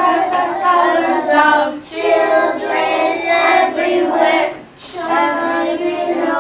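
A group of young children singing together in unison, in sung phrases with short breaks about two seconds and about five seconds in.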